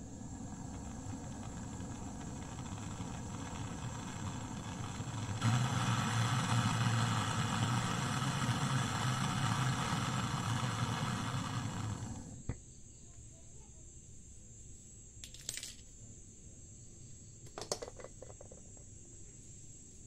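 Gas brazing torch hissing at the joint where the capillary tube meets the refrigerator's filter drier, growing louder about five seconds in and cutting off a little past halfway, followed by a sharp click. Two light metallic clinks follow near the end.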